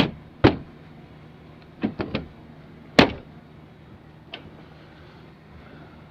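Sharp knocks and clicks of the front headlight and turn-signal assembly being worked back into its mount, about seven in all. The loudest come about half a second in and three seconds in, with a quick run of three near two seconds, over a faint steady low hum.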